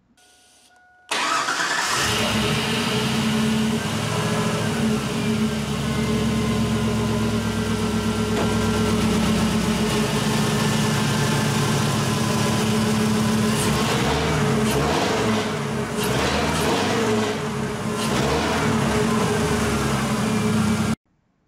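Swapped-in 5.3-litre LS V8 from a 2002 Yukon running, starting abruptly about a second in and running steadily, with its engine speed wavering in the last several seconds. The engine is being run with the ECM's abuse-mode RPM cut disabled in the tune.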